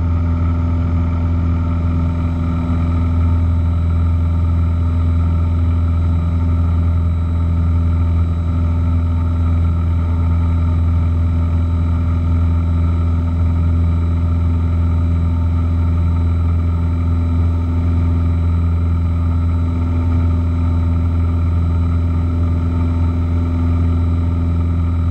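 Piper PA-28 Cherokee's single piston engine and propeller running steadily at climb power, heard from inside the cabin as an even, unchanging low hum.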